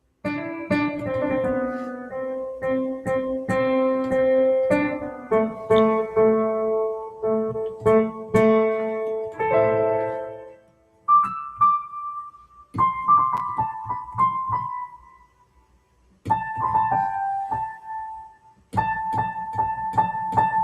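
Digital piano being played: sustained chords and short melodic phrases, with brief pauses about eleven, sixteen and nineteen seconds in.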